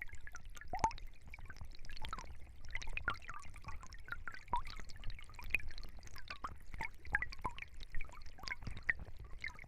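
A stream babbling and gurgling, with a steady low rumble and many quick bubbling plinks.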